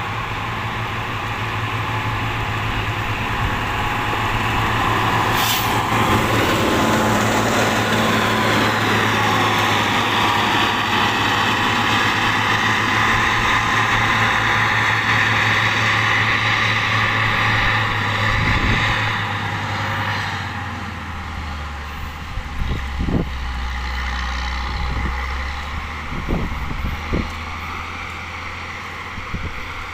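Caterpillar 140G motor grader's diesel engine running steadily under load while its blade scrapes and mixes crushed rock, with a gravelly hiss over the engine. Louder as it passes close, then lower in pitch and fainter as it moves away in the second half, with a few short knocks near the end.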